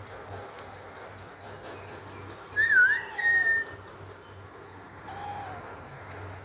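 Pet parakeet whistling: a short whistle that dips and comes back up in pitch, then a steady held note, with a fainter short call a couple of seconds later.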